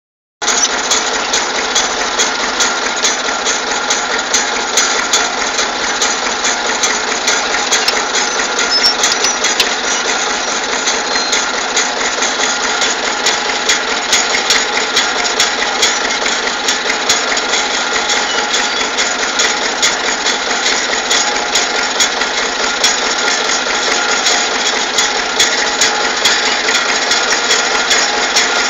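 Front-loader farm tractor's engine running steadily, with a fast, even clatter.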